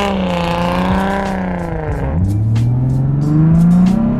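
Car engine heard from inside the cabin, holding a steady pitch, then dropping sharply about two seconds in, as at a gear change, and rising steadily as the car accelerates.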